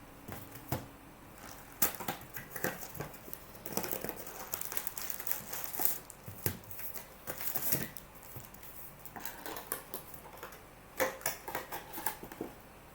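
Crinkling and rustling of trading-card packaging being handled and opened, with many short clicks and taps, busiest in the middle and again near the end.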